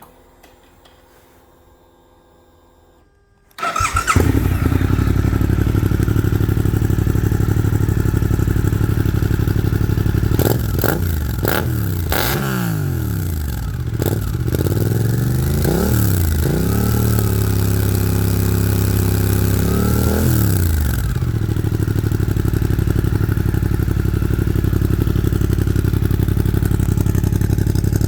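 Suzuki GSX-8S parallel-twin running through an Arrow full-system exhaust: the engine starts about three and a half seconds in and idles, is revved up and down several times from about ten to twenty seconds in, then settles back to a steady idle.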